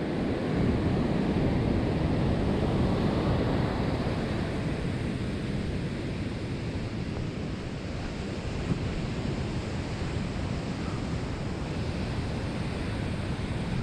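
Ocean surf washing on a beach, a steady rushing noise, with wind buffeting the microphone; it eases slightly after the first few seconds.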